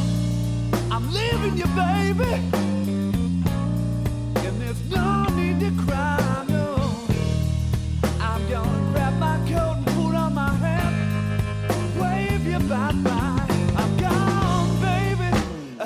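Rock music with bass, drums and a melodic lead line that bends in pitch; it drops away briefly near the end.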